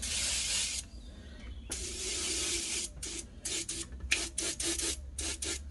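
Aerosol can of spray grease spraying: a hiss lasting under a second, a longer spray of about a second, then a quick run of short squirts.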